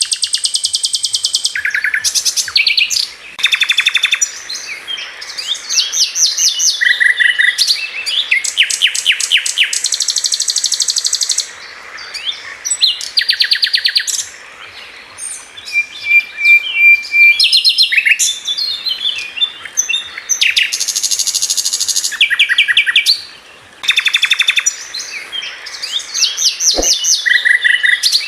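Songbirds chirping and trilling in quick trains of rapidly repeated notes, one phrase after another, with a short steady whistled note about sixteen seconds in.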